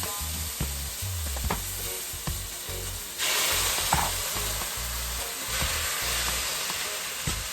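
Food sizzling in a hot frying pan while being stirred, with light utensil knocks. About three seconds in the sizzle suddenly gets louder and brighter for a couple of seconds.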